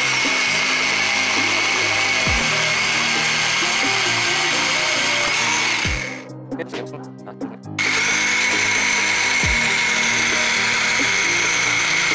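Angle grinder with a metal cut-off disc cutting a 12 mm threaded steel rod, a steady loud high whine. It stops about six seconds in, leaving a short break with a few handling clicks, then the grinder starts up on the rod again.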